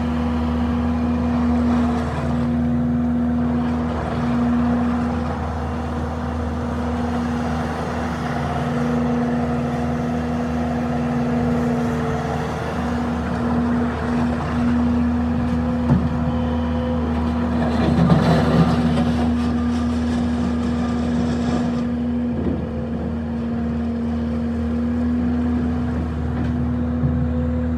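Bobcat S650 skid steer loader's diesel engine running steadily, with a brief louder surge about two-thirds of the way through.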